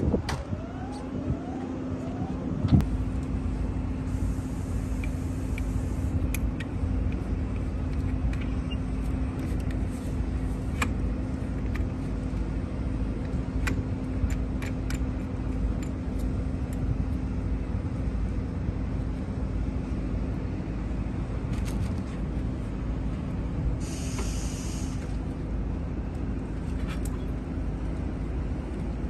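Car engine running steadily with a low rumble and a constant hum. A sharp knock comes about three seconds in, with scattered clicks and two brief hisses later.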